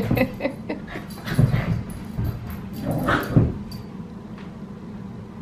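Australian cattle dogs, two adults and a puppy, vocalising in short bursts as they play-fight, the loudest burst about three seconds in.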